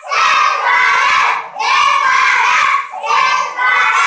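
A group of young children chanting loudly in unison, in short phrases of a bit more than a second each with brief breaks between them.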